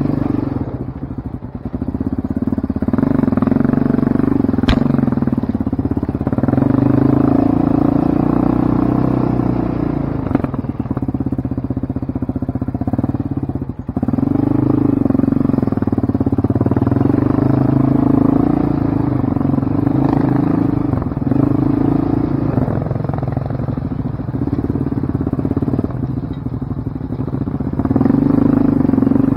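Off-road vehicle engine running on a trail, its revs rising and falling as the throttle is worked and eased off twice. A single sharp click sounds about five seconds in.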